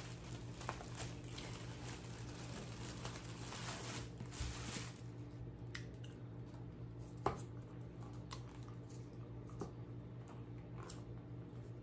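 Plastic wrapper crinkling for about five seconds as a soft pretzel is unwrapped, then quieter eating sounds with scattered small clicks, one sharper click a little past the middle.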